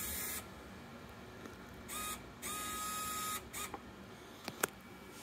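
Small electric winch motor on an RC crawler, the Pro-Line winch on a Traxxas TRX-4, whirring in short bursts with a steady high whine as it is worked to take up the line's slack. One burst ends about half a second in, and two more follow about two seconds in, the second lasting about a second. A couple of faint clicks come near the end.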